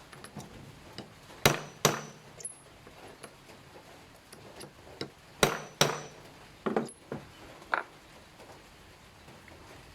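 Sharp knocks on a metal pellet mold, struck twice in quick pairs with a brief metallic ring, followed by a few lighter taps.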